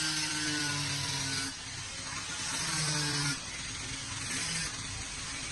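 A machine or power tool running with a steady hum, which grows louder in three stretches and eases off in between.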